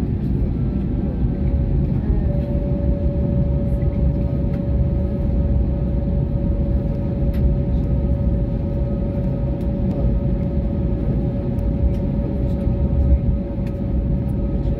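Airliner cabin noise as the jet taxis: a steady low rumble, joined about two seconds in by a steady whine that holds.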